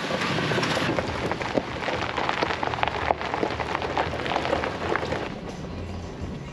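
Vehicle tyres rolling slowly over a gravel forest road while turning around, a dense crackle of stones that eases off after about five seconds.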